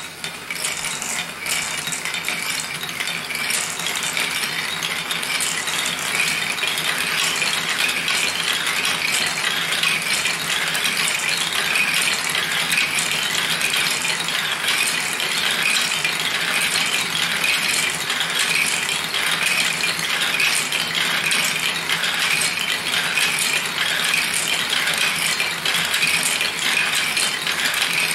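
Marbles rolling and clattering along a 3D-printed plastic marble run and dropping into the collecting bin: a dense, continuous rattle of small clicks that builds up in the first second or so and then holds steady. A faint steady hum from the small electric motor driving the lift runs beneath it.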